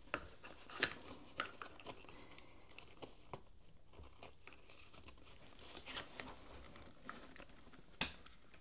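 Faint handling noise as a plastic car-seat adapter is fitted onto a pushchair frame: scattered sharp clicks and knocks of plastic on the frame, with light rustling between them.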